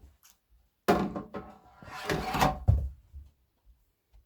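Knocks and scrapes of hard objects being shifted and handled, starting about a second in and lasting about two seconds.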